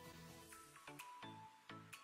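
Quiet background music: a melody of short ringing notes, about three a second.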